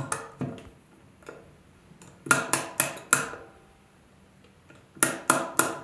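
Ratchet of a MetMo Driver ratcheting screwdriver clicking as its side arm is turned: the spring-loaded pin snaps into the slots of the castellated chuck. A quick run of four sharp metallic clicks comes about two seconds in, and three more near the end.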